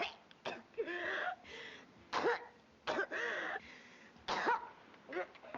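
A woman's coughing fit: about six hard coughs roughly a second apart, with throaty hacking between them. It is acted as the cough of a very ill woman.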